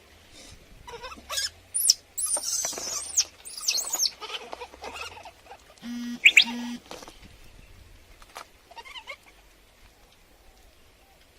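High, gliding animal squeaks and chirps come in quick bursts through the first half, with two short, flat, beep-like tones about six seconds in. The calls thin out and stop after about nine seconds.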